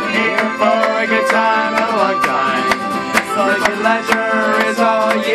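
Live acoustic folk music: an acoustic guitar strummed in a steady rhythm, with fiddles and a man singing.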